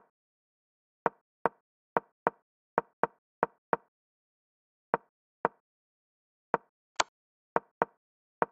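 Digital chess move sounds from a Chess.com replay: a short wooden clack as each piece is placed. About sixteen come in quick, uneven succession, and one sharper, brighter click lands about seven seconds in.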